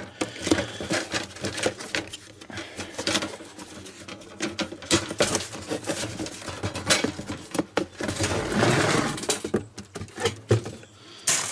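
Havahart one-door wire-mesh live trap rattling and clicking inside its cardboard box as the box is tipped and the cage is worked out, with cardboard rubbing and a longer scrape about eight seconds in.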